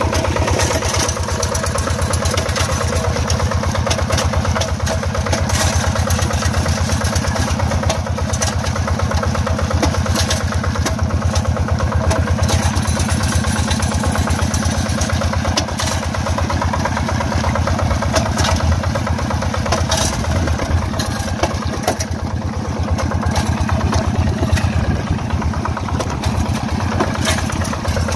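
Single-cylinder diesel engine of a Yanmar two-wheel hand tractor running steadily with a fast, even chugging, under load while it drags a comb leveller through flooded paddy mud to smooth the ploughed soil.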